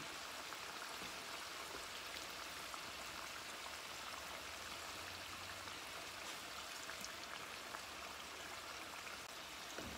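Sweet potato slices deep-frying in hot oil in a wok: a steady sizzle with fine crackles.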